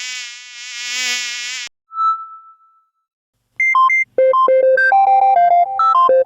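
Android phone ringtone and notification sounds played one after another. A buzzy synthesized tone swells twice and cuts off. A single short ding follows, then, from about three and a half seconds in, a quick electronic melody of bright beeping notes.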